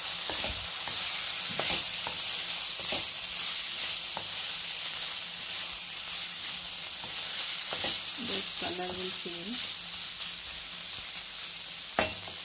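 Chicken, capsicum and onion sizzling in hot oil and sauce in a pan while being stir-fried, with the spatula scraping and clicking against the pan; a sharp knock of the spatula on the pan near the end. The dish has just had soya sauce and chilli vinegar stirred in.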